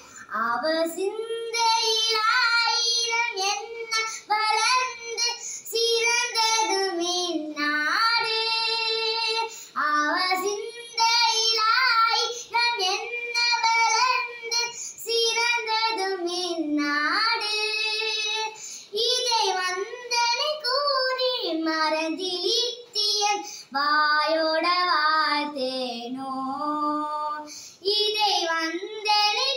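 A young girl singing a Tamil song solo and unaccompanied, holding long notes that bend and glide, with short breaths between phrases.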